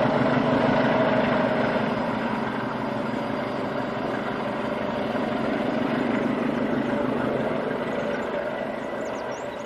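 Medway 1400-class diesel locomotive's engine running steadily, its sound slowly fading as the locomotive moves away.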